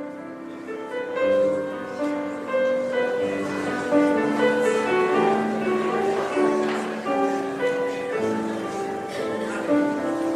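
Piano music: chords with a melody line above, notes overlapping and sustained.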